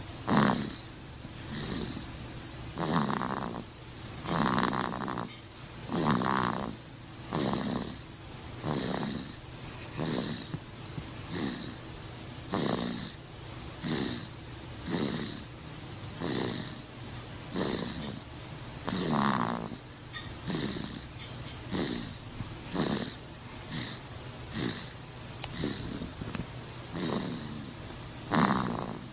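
Snoring, one snore about every second and a half, some louder than others, each carrying a faint high whistle.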